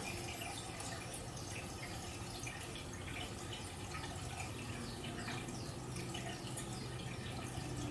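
Faint aquarium water bubbling and dripping, many small drips and bubble pops over a low steady hum.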